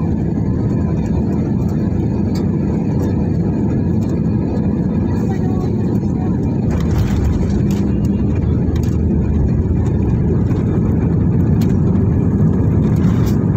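Jet airliner cabin noise on landing: a steady low rumble of engines, airflow and wheels on the runway, growing somewhat louder from about seven seconds in.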